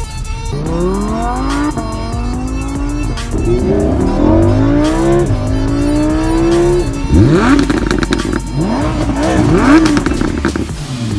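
Lamborghini Huracán's naturally aspirated V10 accelerating hard. The revs climb and drop back sharply four times as it shifts up through the gears, then come several shorter, sharper rises in revs.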